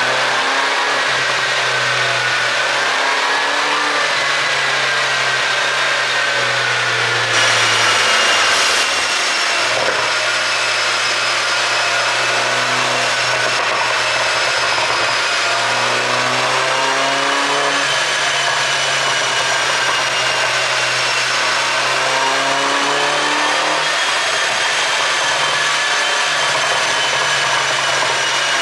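Turbocharged 1.6-litre four-cylinder engine of a 2010 MINI Cooper S (R56) with an ECU pop-sound tune, running steadily, its note drifting gently up and down. A louder rushing burst comes about seven seconds in and lasts a second or so.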